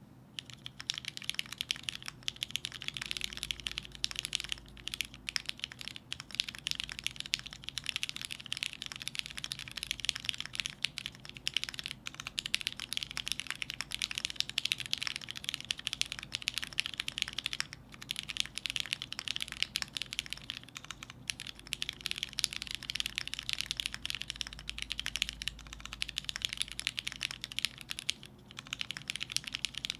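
Continuous fast typing on a custom Matrix Faukwaa keyboard: lubed, broken-in Cherry MX Black linear switches on an aluminum plate in a bottom-mount case, with GMK keycaps, giving a steady stream of keystroke clacks with a couple of brief pauses.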